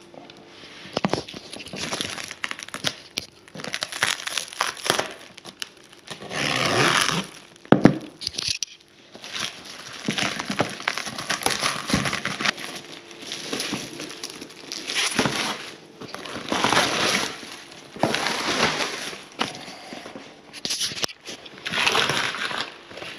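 Black plastic wrap and packing tape being ripped and crumpled off a cardboard shipping box, in irregular bursts of tearing and crinkling, with a sharp snap about eight seconds in.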